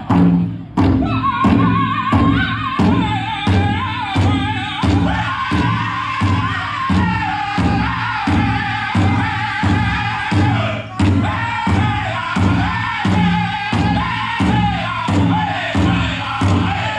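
A powwow drum group singing a chicken dance song: a big drum struck in a steady beat, about one and a half strokes a second, under high-pitched men's voices. One voice leads off about a second in, and the rest of the singers join a few seconds later.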